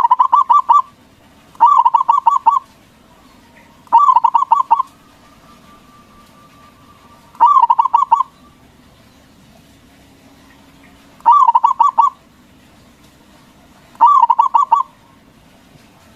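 Zebra dove (perkutut) cooing: six phrases of about a second each, every one a quick run of pulsing coos, with pauses of one to three seconds between them.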